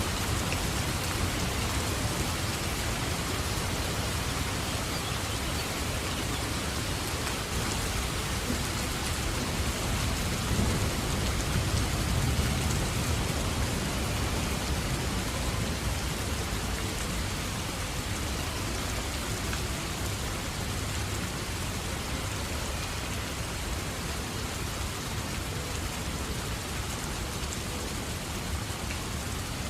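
Steady heavy rain pattering on a surface, with a low thunder rumble that swells about a third of the way in and dies away.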